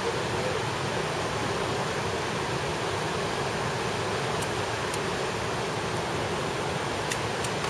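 Steady rush of flowing water, with a few faint clicks in the second half.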